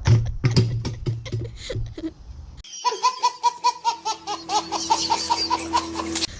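Laughter. It starts with choppy laughing over garage hum, then about two and a half seconds in a run of rapid, high-pitched laughs, about four a second over a steady tone, begins on a sudden cut in the background, as a dubbed-in laugh sound effect would.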